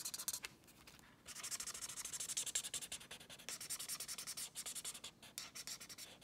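Felt-tip marker scratching across sketchbook paper in many quick strokes as it fills in a small area with black. It goes quiet briefly about half a second in, then starts again.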